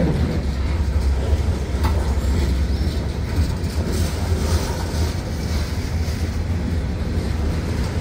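Mixed manifest freight train rolling past, its cars making a steady low rumble on the rails, with one short click about two seconds in.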